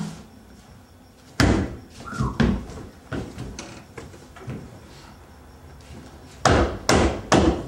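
A series of irregular thumps and knocks, ending with four loud thumps in quick succession.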